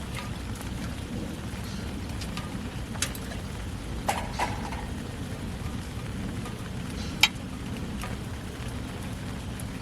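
Steady rain falling, with a few sharp drips or taps over it, the loudest about seven seconds in.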